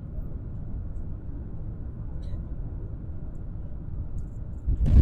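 Steady low rumble of an airliner cabin in flight. Near the end it jumps suddenly to a much louder, heavier rumble.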